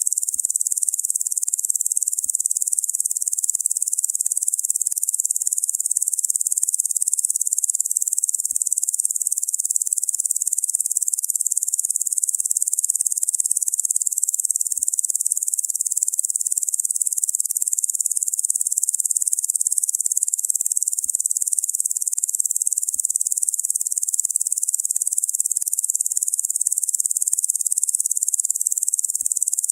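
Locusts buzzing in a continuous, steady, high-pitched drone, all of it high in pitch with no low sound, unchanging throughout.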